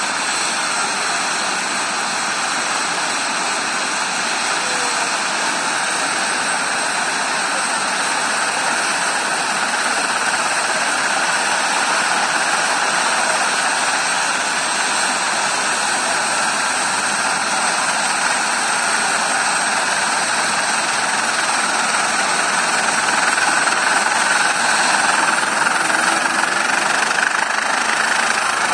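Eurocopter EC145 helicopter's twin turbine engines running on the ground with the main rotor turning slowly: a steady turbine whine over a broad hiss, growing a little louder toward the end.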